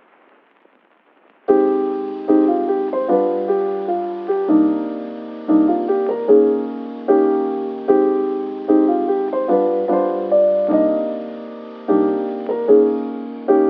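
Background piano music: after a second and a half of faint hiss, piano notes and chords start, each struck and fading before the next.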